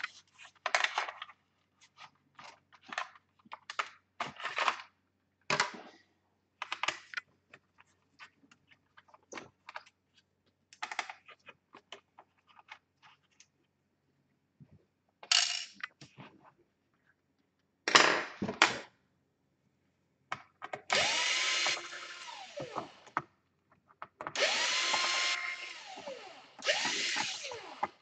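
Scattered clicks and knocks of hands and tools working on a laptop's plastic base and pulling out its optical drive, with one sharp knock about two-thirds of the way in. Near the end a cordless electric screwdriver runs three times in short bursts, its whine rising and falling as it drives screws out of the laptop's bottom case.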